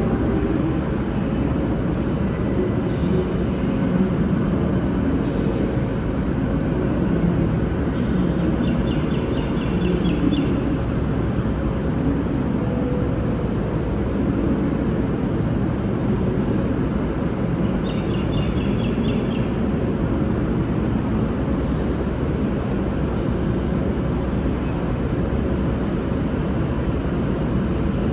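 Diesel train engines idling with a steady low rumble and a faint constant hum. Two brief high chirps come about a third and two-thirds of the way through.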